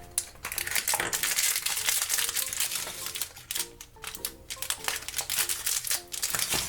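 Crinkling of a plastic toy wrapper being handled and torn open, a dense, irregular crackle, over soft background music.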